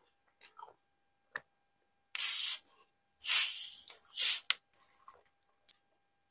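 Plastic cola bottle's screw cap being twisted open, the carbonation escaping in three loud hisses starting about two seconds in, the middle one longest, followed by a sharp click and small ticks of the cap.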